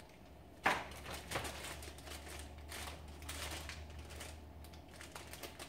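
Plastic packaging crinkling and rustling in the hands, in irregular crackles that start sharply about a second in, over a low steady hum.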